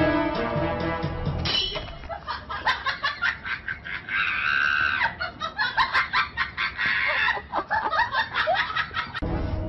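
Background music that cuts out after about a second and a half, giving way to high-pitched laughter in quick pulses with a longer squeal in the middle; the music comes back near the end.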